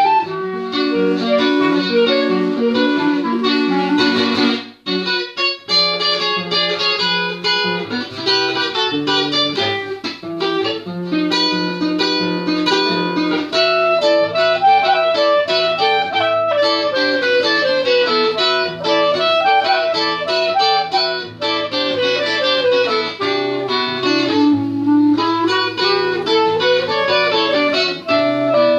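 Nylon-string classical guitar and clarinet playing an instrumental duet. The guitar picks a steady pattern of plucked notes, with a brief break about five seconds in. The clarinet carries a flowing melody through the second half.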